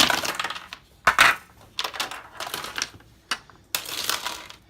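A plastic ice tray and ice cubes clattering as they are handled, a run of sharp rattles and clicks, loudest a little over a second in.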